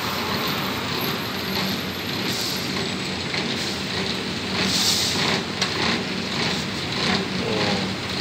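Steady rushing background noise with a low hum under it, with a few faint clicks.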